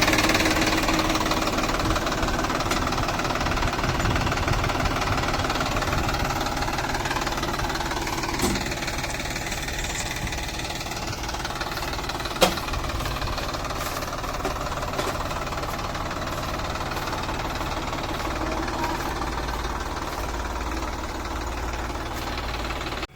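Diesel engine of a backhoe loader or tractor running steadily with a knocking rumble, slowly getting quieter over the first twelve seconds or so. There is a single sharp click about twelve seconds in.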